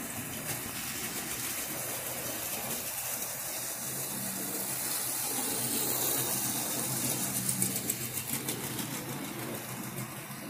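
Model train running on the layout's track: a steady electric-motor hum and wheel rumble that grows louder as the train passes close by, peaking around six to eight seconds in with light clicking.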